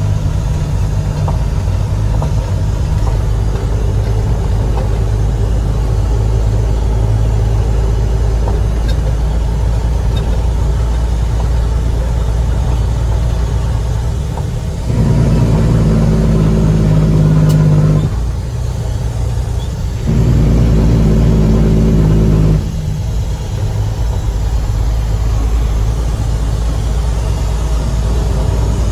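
International 9300 truck's diesel engine idling steadily. About halfway through it is revved twice, each time held at a higher speed for two to three seconds before dropping back to idle.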